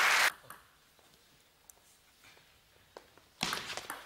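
A near-silent pause with a few faint ticks, then about three and a half seconds in an audience suddenly starts applauding, a dense run of sharp claps.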